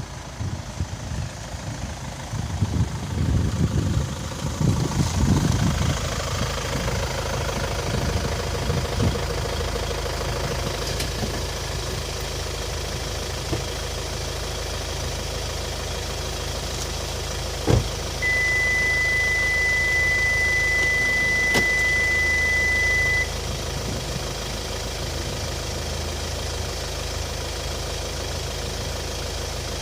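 Kia Sportage (QL) engine running, louder and uneven for the first several seconds, then settling into a steady idle. Midway a sharp click is followed by a steady high beep lasting about five seconds.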